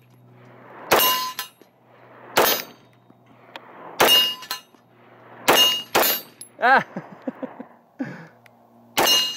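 Six 9 mm pistol shots from an HK VP9, fired at a steady pace about a second and a half apart, with two quick shots close together in the middle. Steel target plates ring with a metallic clang after hits.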